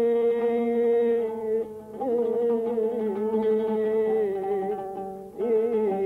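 Iraqi music on the oud: a melody of long held notes with a slight waver, changing pitch a few times and briefly dipping about five seconds in.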